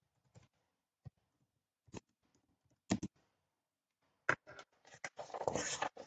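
Computer keyboard keys clicking singly, about one stroke a second, as text is typed. Near the end this turns into a second or so of denser clicking and rustle.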